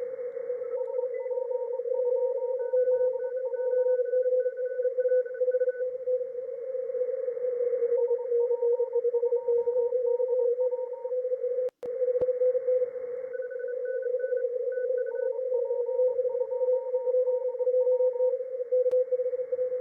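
Amateur-radio Morse code (CW) received through a shortwave receiver: several stations in a DXpedition pileup keying at once. One strong, low tone is keyed fast, and fainter, higher-pitched stations key in and out over band hiss. The audio cuts out for an instant about midway.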